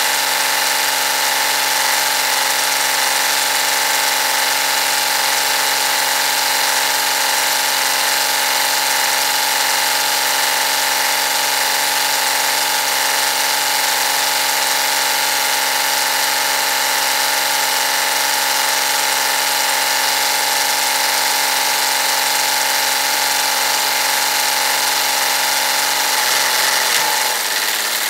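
Backhoe-loader tractor engine idling steadily. About two seconds before the end its pitch shifts as the loader lifts the milling machine's ram.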